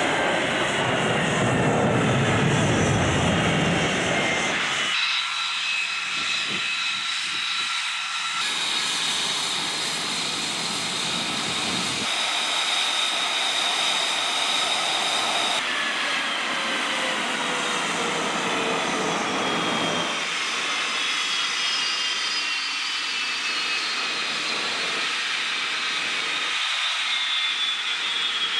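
Fighter jet engines: a heavy, deep jet roar as a jet flies past, then, across several cuts, the high steady whine of jet engines running, with whine tones slowly falling in pitch later on.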